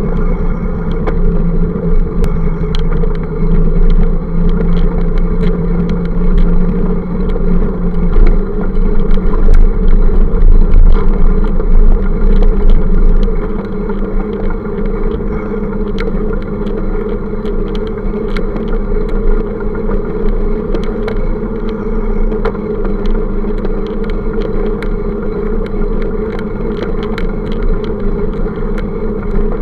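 Steady riding noise from a camera on a moving bicycle: rumble of wind and road, with motor traffic on the adjoining avenue and scattered small clicks and rattles.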